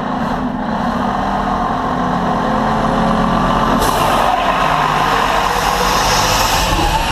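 Fire engine's diesel engine running steadily, then growing louder as the truck rolls out and passes over the camera. A short sharp hiss of air from its air brakes comes a little before halfway through.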